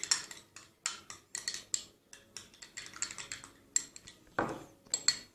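A spoon stirring soap in a bowl: quick, irregular clinks and scrapes against the bowl, with a louder scrape about four and a half seconds in.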